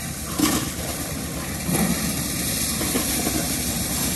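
Tractor engine running steadily, driving a maize sheller. Dry corn cobs knock into a steel pan about half a second in, and again more softly near two seconds.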